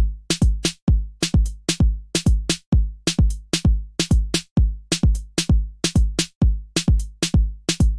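Electronic drum machine beat of kick drum and bass: punchy hits with a deep booming low end and a short bright click on top, about four a second in a repeating pattern.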